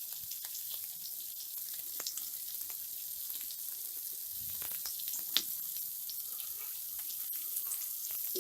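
Soya nuggets and spice masala frying in a karahi: a steady sizzle with scattered crackles and one sharper click about five seconds in.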